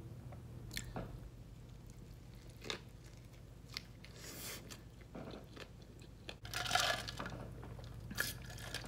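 Close-up mouth sounds of a person chewing a sub sandwich: scattered soft clicks and crunches, with a louder stretch of chewing about seven seconds in.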